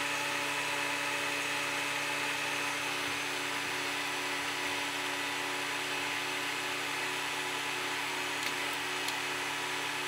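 Restored FuG 16 ZY VHF transceiver running: a steady machine-like whine made of several held tones over an even hiss, unchanging throughout, with a couple of faint ticks near the end.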